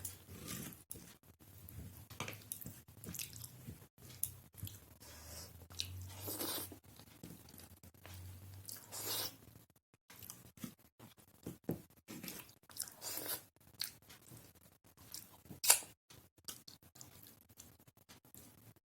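A person chewing and eating a meal of rice and dal, with irregular wet chewing noises and occasional crunches. One sharp click stands out about three-quarters of the way through.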